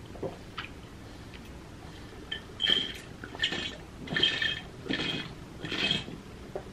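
Drinking water through a bottle's straw lid: about five sucking sips, a little under a second apart, starting about two seconds in.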